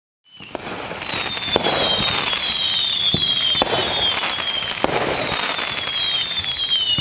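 Fireworks sound effect fading in just after the start: a dense, steady crackle with sharp bangs every second or so and several high whistles that slowly fall in pitch.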